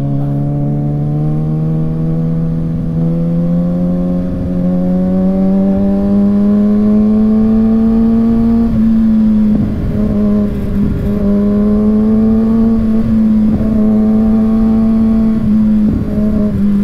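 Kawasaki Ninja ZX-6R inline-four engine running under way, its pitch climbing slowly for about nine seconds, then changing briefly and holding at a steady pitch with small rises and falls, with wind noise underneath.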